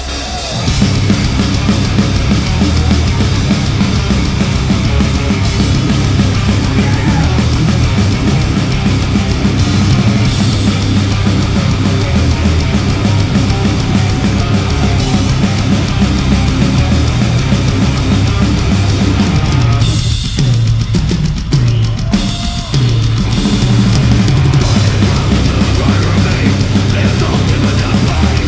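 Heavy metal band playing live, loud drums and distorted guitars, with a short break in the music about twenty seconds in before the band comes back in.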